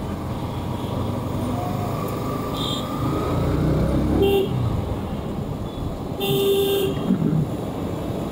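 Motorcycle riding through dense city traffic: steady engine and road rumble, with vehicle horns honking, short toots about three and four seconds in and a longer honk about six seconds in.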